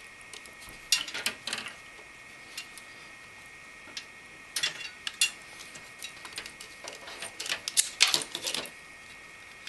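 Scattered clicks, taps and light knocks as a liquid-cooler radiator and its hoses are handled and fitted against a computer case. They come in three short clusters: about a second in, around five seconds, and around eight seconds.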